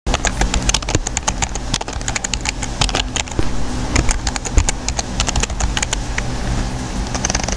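Rapid, irregular clicking of computer keyboard keys being typed, over a low steady hum.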